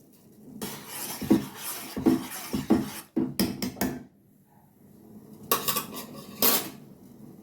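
Metal kitchen utensils clinking and scraping against a pot: a long run of scraping and clicks, a short pause, then a few more clinks near the end.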